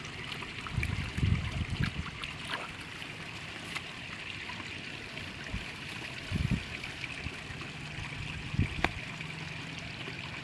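Steady trickle of flowing water, with a few dull low bumps, a cluster between about one and two seconds in, then one more at about six and a half seconds and another near nine seconds.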